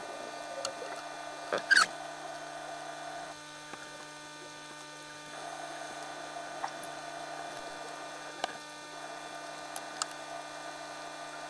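Steady hum made of several fixed tones, the self-noise of a camcorder recording inside an underwater housing. Two sharp clicks sound just under two seconds in, and a few fainter ticks follow later.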